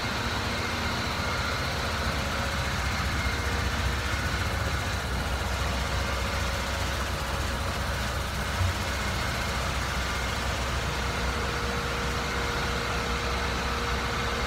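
Sand-bedding reclamation machinery (sand washer and shaker with their pumps and motors) running: a steady low mechanical hum with a few faint steady whining tones over it.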